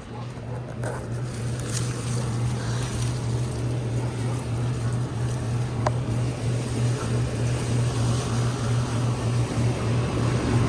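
Outdoor central air conditioner condenser unit running, a Rheem: a steady low compressor hum with fan noise above it, growing louder over the first couple of seconds.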